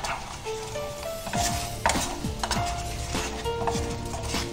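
Wooden spatula stirring and scraping bubbling jaggery syrup with dry fruits in a non-stick frying pan, in short strokes about every half second, the syrup sizzling. Background music with held notes plays under it.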